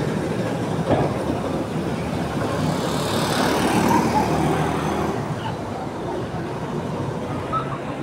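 Steady background traffic noise, with a vehicle passing and swelling louder about three to five seconds in before fading.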